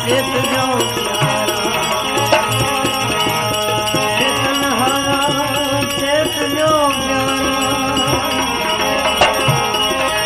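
Devotional bhajan music: a melody over held drone notes, with a steady percussion beat.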